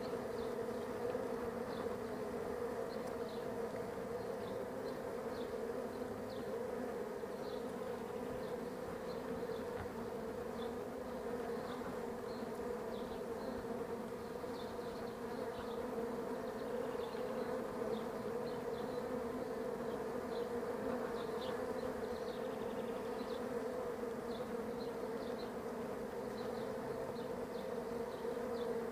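Many honeybees humming steadily at an observation hive's entrance, with faint short high ticks scattered through the buzz.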